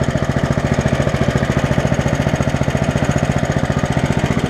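11 hp Honda single-cylinder four-stroke engine running steadily with a fast, even firing beat as it drives a repowered Case 700 tractor slowly in first gear.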